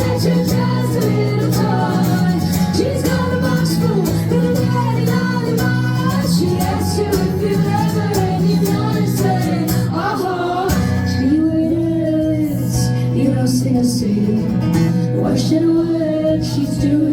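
Live pop-rock band playing a passage of the song, guitar-led with a steady beat and some wordless singing; the low end drops out for a moment a little over ten seconds in before the band carries on.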